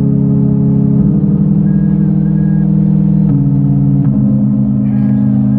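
A rock band playing live through a large PA: slow, sustained low chords on guitars, bass and keyboards, changing to a new chord about a second in, again past three seconds and around four seconds.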